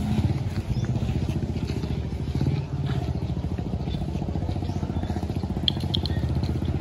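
A small engine running steadily with a fast, even putter. A few brief high chirps come near the end.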